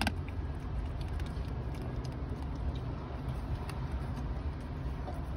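A steady low rumble, with a few faint, soft clicks from a lurcher licking and mouthing a frozen raw rabbit.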